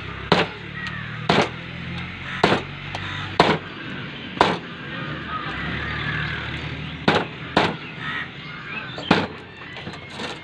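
Chicken being chopped with a knife on a wooden chopping block: about eight sharp chops at uneven intervals, some close together, with a longer pause in the middle.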